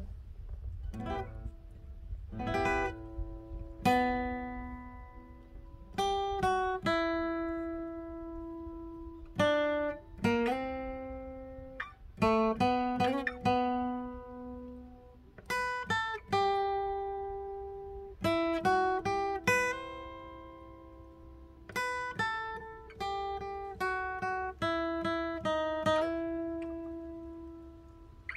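Acoustic guitar playing an instrumental passage without singing: plucked notes and strummed chords come every second or two, each left to ring and fade.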